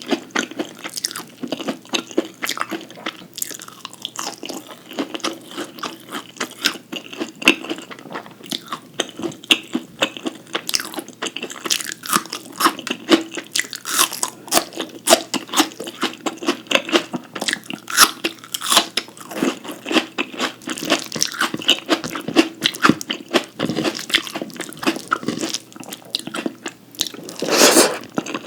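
Close-miked eating sounds: a person crunching and chewing mouthfuls of food, a dense run of quick crackling clicks, with one louder, longer noisy burst near the end.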